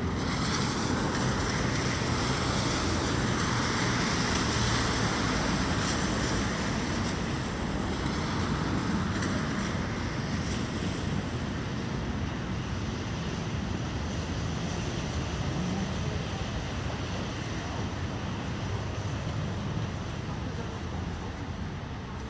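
Steady rushing noise of blizzard wind mixed with road traffic, swelling for the first ten seconds or so and then easing to a lower, even rush.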